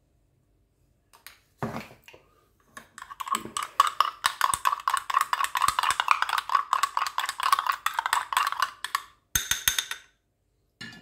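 Metal teaspoon stirring turmeric into yogurt in a drinking glass, clinking rapidly against the glass for about six seconds, with a few sharper clicks near the end.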